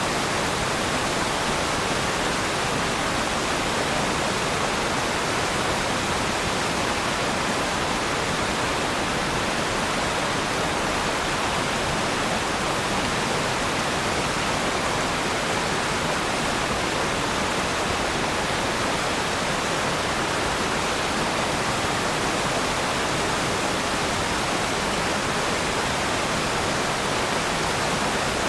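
Waterfall: water crashing and rushing in a steady, even roar with no breaks or changes.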